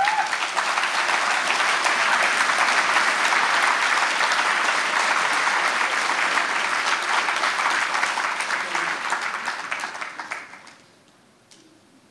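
Audience applauding, steady for about ten seconds and dying away near the end.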